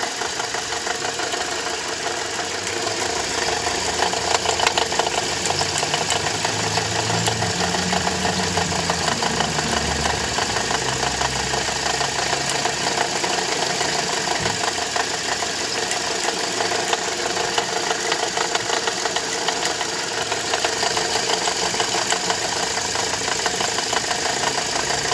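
Toyota Corolla E150 engine running with a rapid knocking clatter from the alternator's overrunning clutch pulley. The clutch is seized, rusted and cracked, with play that makes the pulley wobble.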